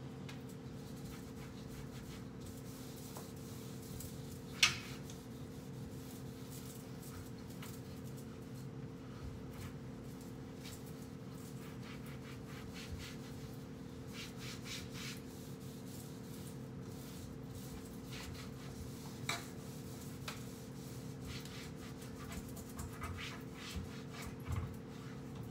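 A cloth rubbing and wiping over wooden kitchen cabinet doors in repeated strokes, with a sharp knock about five seconds in and a few smaller knocks later, over a steady low hum.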